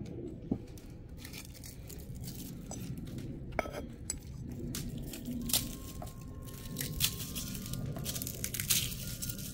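Handling of a clay garlic keeper and a garlic bulb: a few sharp clinks of the terracotta lid against its pot, and the papery skins of the bulb crackling and tearing as it is broken into cloves over a wooden cutting board.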